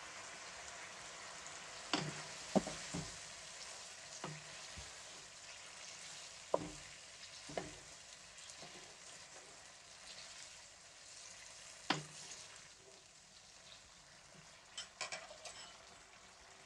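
Chicken pieces and freshly added yogurt sizzling in hot oil in a pan, the first stage of frying the chicken with the yogurt. A spatula stirs them, scraping and knocking against the pan about seven times, and the sizzle eases off in the second half.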